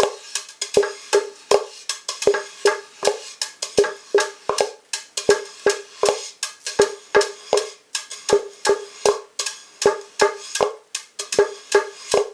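Handmade wooden hand drum, a hollow beech-and-mahogany shell with a thin solid-wood top, tapped by hand in a quick, uneven rhythm of about three strokes a second. Every stroke gives the same short, hollow, pitched knock.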